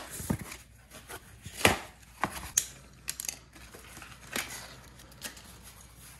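Electric-bike parts and their packaging being handled: scattered clicks and knocks with light rustling of wrapping, the sharpest knocks near the start and about one and a half to two and a half seconds in.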